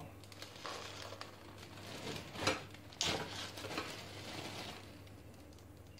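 Granular bonsai soil mix poured from a scoop into a plastic tray, several short pours with the loudest about three seconds in.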